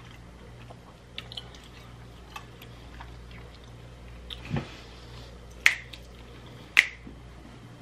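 Close-miked chewing of a soft mouthful of mac and cheese, with faint wet mouth clicks throughout and two sharper clicks in the second half.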